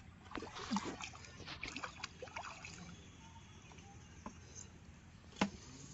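Faint splashing and dripping of water in a shallow irrigation ditch as a bowfishing arrow and speared fish are pulled out, in a flurry over the first couple of seconds. A single sharp knock about five and a half seconds in.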